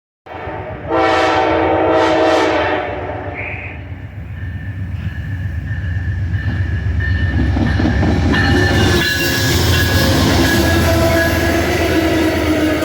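Amtrak passenger train's horn sounds one chord-like blast of a second and a half or more about a second in. The train's rumble then builds and stays loud as it passes, with steady wheel and rail noise and a faint high wheel squeal.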